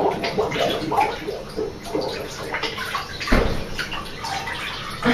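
Bathwater sloshing and splashing in a bathtub as people shift about in it, with one dull thump about three seconds in.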